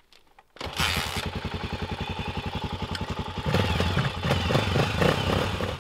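Dirt bike engine comes in suddenly about half a second in and idles with an even, rapid beat. About three and a half seconds in it is revved louder.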